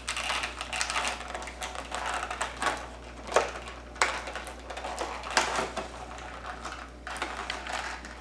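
Strong tape being picked at and peeled off a toy's packaging: irregular crackling and clicking with rustling of the box, and a few sharper snaps.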